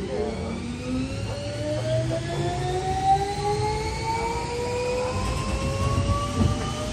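Tokyu 8500-series electric commuter train heard from the cab as it pulls away from a station: the traction motors' whine climbs steadily in pitch as the train gathers speed, over a low rumble of the running gear.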